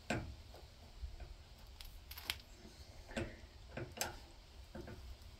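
Scattered sharp metallic clicks and ticks of a socket wrench being worked on a lawn tractor's steering-link nut, a few single clicks at uneven intervals.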